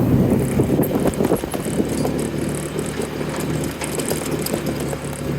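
A motor running steadily with a low hum, with metallic rattling and clicking over it.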